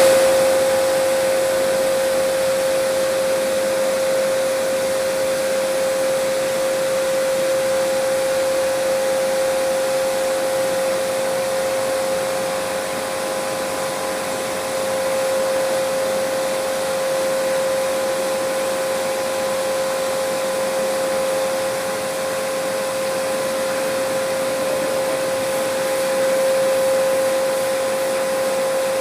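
High-pressure washer running steadily, a constant whine over the hiss of the water jet.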